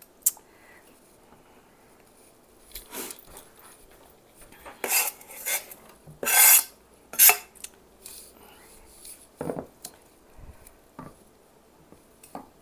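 Kitchen knife scraping chopped onion off a plastic cutting board into a skillet: a series of short scrapes and knocks, the loudest about six and seven seconds in.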